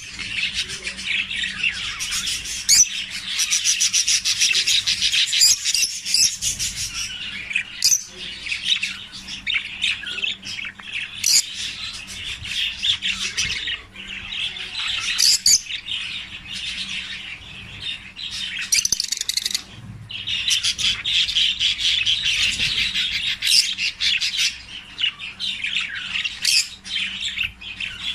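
Lovebirds chattering continuously in fast high-pitched twitters, with sharp squawks every few seconds and a couple of short lulls.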